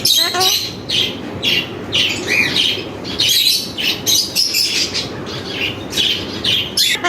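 Pet parrot calling in a rapid series of short, high squawks and chirps, several a second, some rising or falling in pitch, over steady background noise.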